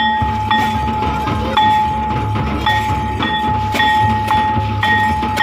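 Santal folk dance music: large drums beating low under a high sustained tone that is sounded again and again, roughly every half second to a second.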